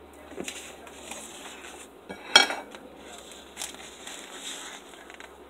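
Kitchenware being handled: a sharp clatter about two seconds in, with lighter knocks and rustling around it as the fried burritos are moved about on a paper plate.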